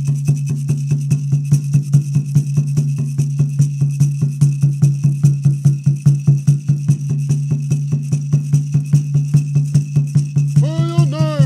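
Native American Church peyote song accompaniment: a water drum beaten in a fast, even beat with a gourd rattle. A voice begins singing near the end.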